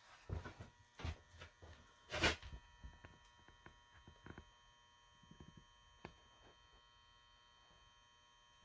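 Faint rustles and light clicks of handling as the camera is moved, the loudest a brief rustle about two seconds in, over a faint steady electrical hum.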